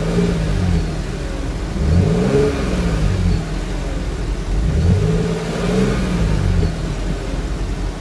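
2014 Audi S4's supercharged 3.0-litre V6 being revved while the car stands still, heard at its quad exhaust outlets. The engine note drops from a rev at the start, then climbs and falls back twice more, about three seconds apart.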